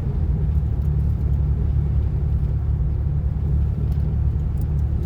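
4x4 vehicle driving along a wet road: steady low engine and road rumble.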